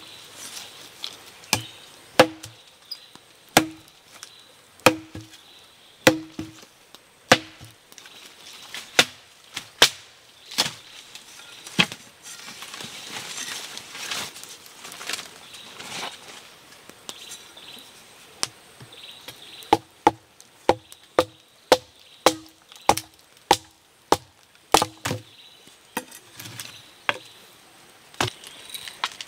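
Wood being chopped with a blade, sharp chopping strikes about one every second and a quarter. After a short pause about halfway, the strikes come faster, about two a second.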